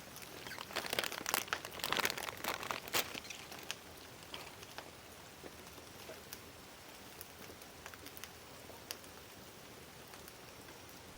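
Light rain pattering, dense for the first three seconds or so, then thinning to scattered single drops over a faint hiss.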